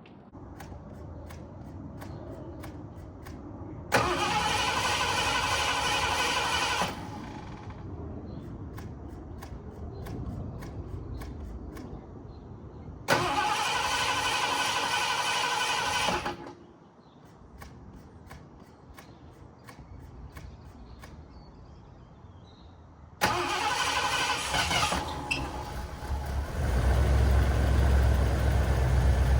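Cold start of a 1978 Ford Country Squire's 351 V8. The starter cranks for about three seconds twice without the engine catching, with light clicking before and between the tries. On the third crank it fires and keeps running, growing louder and deeper near the end.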